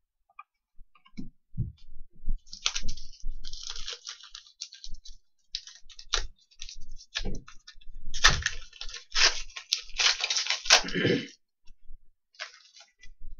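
Trading cards being handled and flipped through by hand: a run of rustles, slides and light clicks, busiest from about eight to eleven seconds in.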